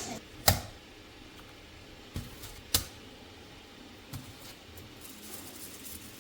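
A few sharp clicks or taps, four in all, the loudest about half a second in and just before three seconds in, over a quiet background.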